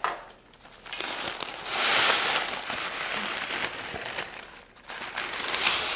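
Crisp baked granola sliding off a sheet of parchment paper into a glass baking dish: the paper crinkling and the dry clusters spilling into the dish, loudest a couple of seconds in.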